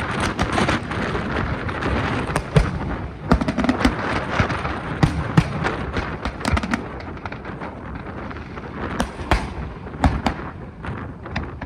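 Fireworks display: a rapid string of bangs and crackling shell bursts, densest in the first half and thinning out later, with a few louder booms near the end.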